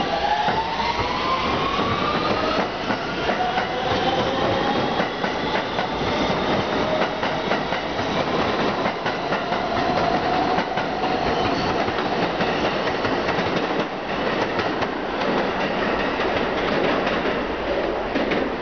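R160B subway train pulling out and accelerating. Its propulsion motors whine, rising in pitch over the first few seconds, over the steady rumble and clickety-clack of the wheels on the rails.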